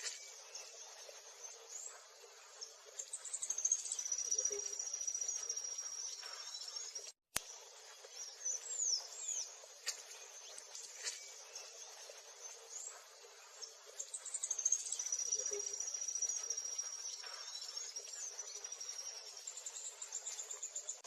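Small songbirds singing: high-pitched trills held for a few seconds at a time, mixed with quick downward-sweeping chirps and scattered short calls. The sound drops out briefly about seven seconds in.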